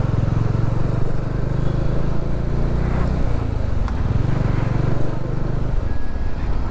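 Bajaj Dominar 400's single-cylinder engine running at low road speed, its throttle eased off about three and a half seconds in and opened again a second later, with a single sharp click about four seconds in.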